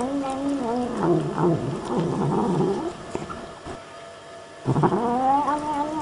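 A cat meowing in long, drawn-out calls: one held meow at the start, shorter wavering cries after it, and another long meow near the end.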